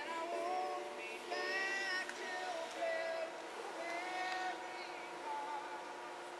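Background music: a high singing voice holds notes and steps from pitch to pitch over a steady sustained backing.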